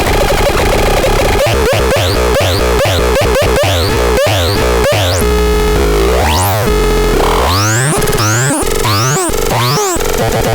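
ASTA PTS 61 electronic sound unit playing loud synthetic siren-like tones: a fast run of short rising chirps, about four a second, then a brief held tone with a rapid warble, then slower swoops that rise and fall.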